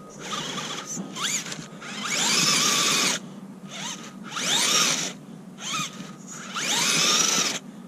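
Electric motor and geared drivetrain of an Axial UTB18 Capra mini RC crawler on a 3S battery, whining in about five throttle bursts. The pitch sweeps up and falls back with each burst, and the longest bursts come about two and a half and seven seconds in.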